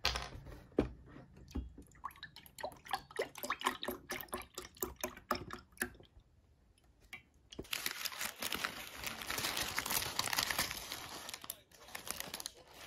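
Food being handled while a bagel sandwich is put together: a run of small clicks and taps, a brief pause, then about five seconds of dense crinkling and rustling.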